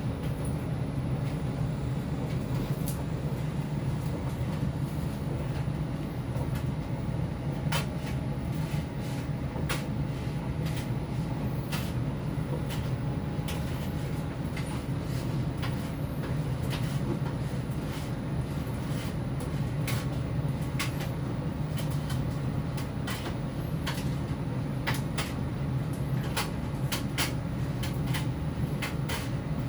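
Electrolux PerfectCare 800 condenser tumble dryer running: a steady low hum from the motor and turning drum, with irregular sharp clicks throughout.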